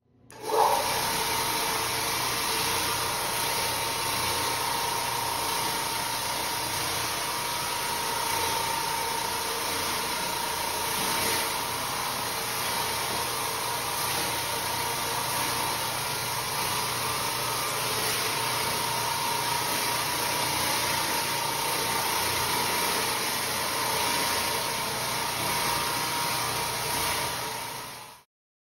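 XL Pro electric floor scrubbing machine running steadily as its pad scrubs a wet tile floor: a constant motor hum with a steady whine. It starts abruptly and cuts off just before the end.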